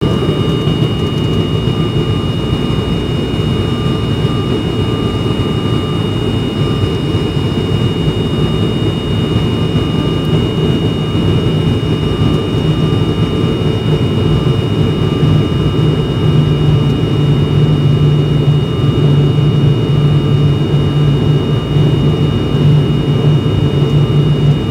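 Cabin noise of an ATR turboprop airliner on descent approach: a loud, steady propeller-and-engine drone with a low hum that grows stronger about two-thirds of the way through, and a thin high whine held steady above it.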